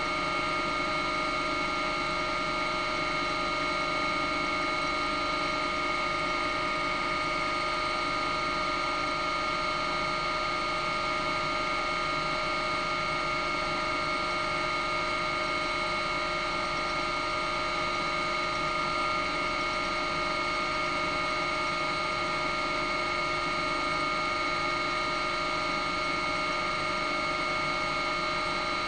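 Steady drone of a helicopter's turbine and gearbox, several constant whining tones over an even rumble.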